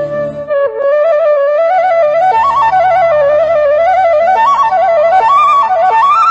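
Bansuri flute playing a devotional melody: a held note gives way about half a second in to quick, ornamented runs stepping up and down, over a low sustained accompaniment that drops out briefly and comes back.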